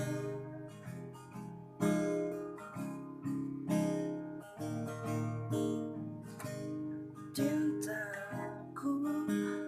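Acoustic guitar strummed between sung lines of a song, a chord struck about once a second. A voice comes back in singing near the end.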